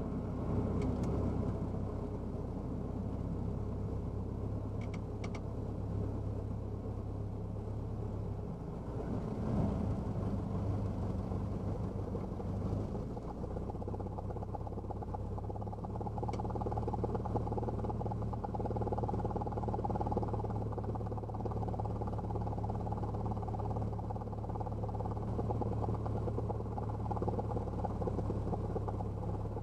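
1978 Cessna 172's four-cylinder Lycoming piston engine and propeller running at low taxi power, a steady low drone heard inside the cabin.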